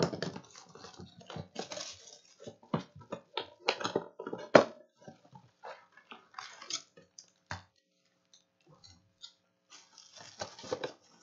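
Plastic shrink-wrap crinkling and tearing as it is peeled by hand off a sealed box of trading cards, in irregular crackles, loudest about four and a half seconds in, with a sparser stretch before a last flurry near the end.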